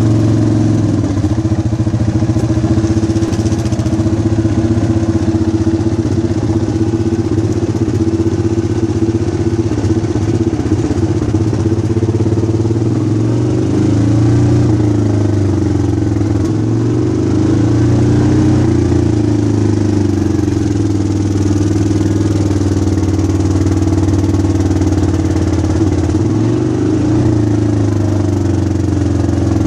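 ATV engine running at low road speed, heard close from the rider's seat, steady with the pitch dipping and picking up again now and then as the throttle eases and opens.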